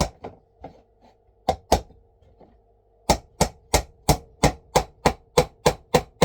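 Hammer driving a nail into a wooden beehive frame: a hard blow and a few light taps, two heavy blows, then after a short pause a steady run of blows about three a second.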